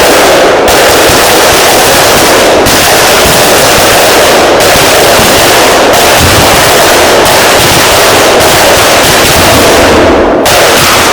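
A dense, continuous barrage of fireworks bangs and crackling, so loud that the recording is overloaded almost throughout. The highs thin out briefly every second or two.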